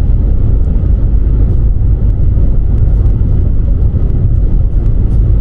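Car driving on the motorway: a loud, steady low rumble of road and engine noise.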